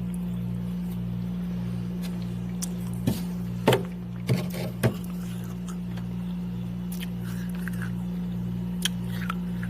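Chunks of freezer ice and frost cracking and crunching: a cluster of four sharp cracks around the middle and one more near the end, over a steady low hum.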